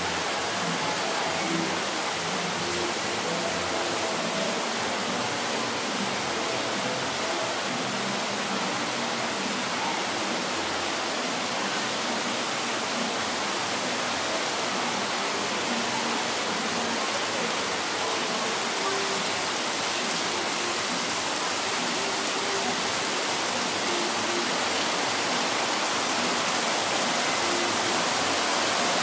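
Heavy rain falling in a steady downpour, with runoff pouring off a roof edge.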